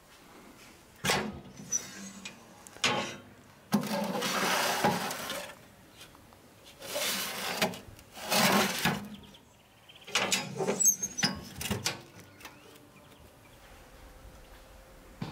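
A metal baking tray being slid out of a steel oven: a run of metal-on-metal knocks and clicks with longer scraping slides in between.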